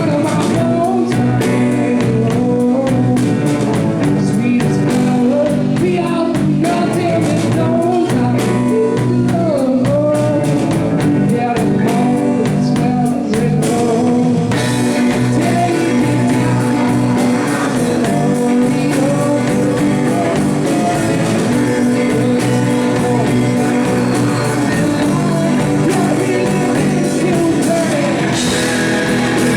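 Live blues-rock band playing a song with sung vocals over guitar.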